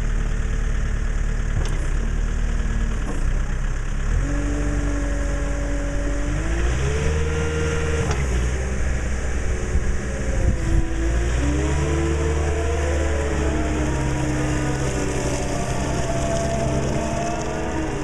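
Weidemann T6025 CC70 telehandler's diesel engine running, its pitch stepping up and down several times as the revs rise and fall.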